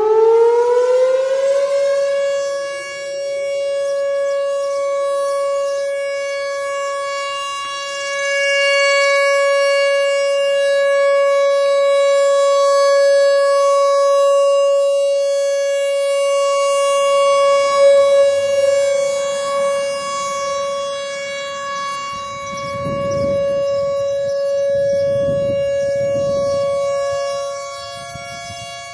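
Whelen Vertex R4 electronic outdoor warning siren sounding a test: its pitch finishes rising in the first two seconds, then it holds one steady tone, the loudness swelling and fading slowly.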